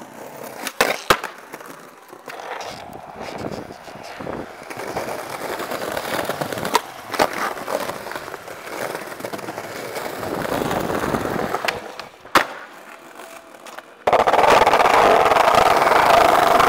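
Skateboard wheels rolling over pavement, with a few sharp pops and clacks of board tricks. From about fourteen seconds in, a loud steady rattle of the wheels rolling over a brick path.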